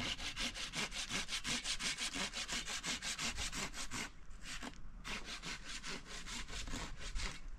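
Hand saw cutting wood in quick, even back-and-forth strokes. It pauses briefly about four seconds in, saws a few seconds more, and stops near the end.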